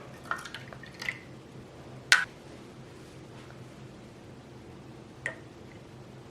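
Water poured from a small cup into a 3D-printed plastic vase: a few short splashes and drips in the first second, then a sharp tap about two seconds in and a smaller one later.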